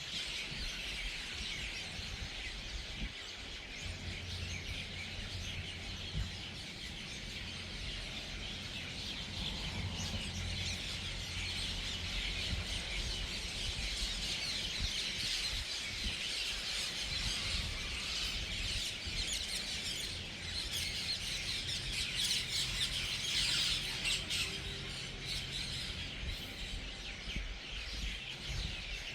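A large flock of birds calling together as they settle into a communal roost for the night: a dense, continuous mass of overlapping chirps, busiest past the middle.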